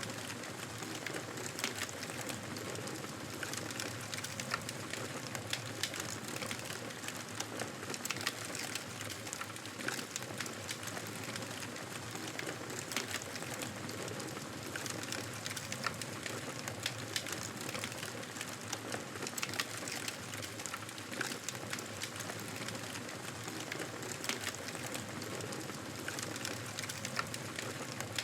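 Wood fire crackling in a fireplace: a steady hiss dotted with frequent sharp pops and snaps.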